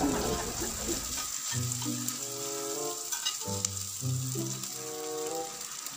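Chopped pork and onions frying in oil and margarine in a pan, sizzling steadily. Background music comes in about a second and a half in.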